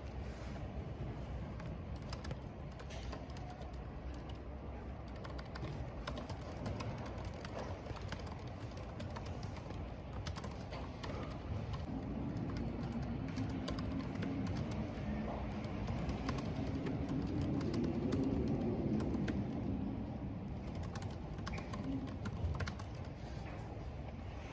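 Typing on a computer keyboard, quick irregular key clicks, over a steady hiss of rain and wind. A low wavering drone swells up in the middle and fades again.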